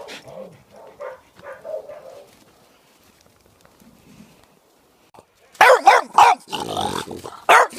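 Dogs barking: after a quiet stretch, a burst of several loud, sharp barks in quick succession starting about five and a half seconds in.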